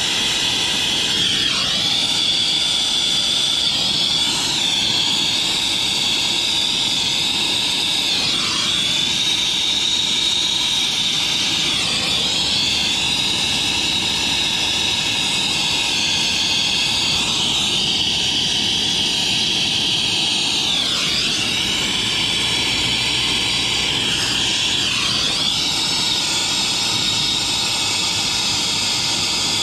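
Brazing torch burning steadily with a hiss on a copper refrigerant line joint, re-soldering it to fix a refrigerant leak. Its pitch dips briefly every few seconds.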